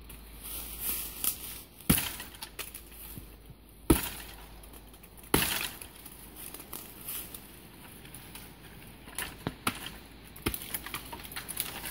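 Hults Bruk carpenter's axe chopping into a caragana trunk: three sharp, loud strikes about two seconds apart, then lighter cracks and snaps near the end as the small tree gives way.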